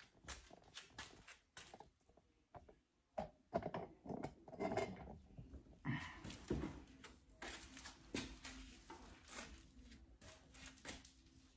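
Irregular small clicks, taps and knocks of hands and tools being handled, some louder than others, with no steady sound beneath.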